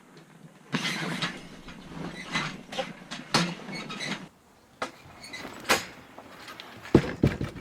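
Camper trailer spreader bars being taken down and folded by hand: about three seconds of scraping and rattling handling noise, then a few sharp clicks and a quick run of knocks near the end.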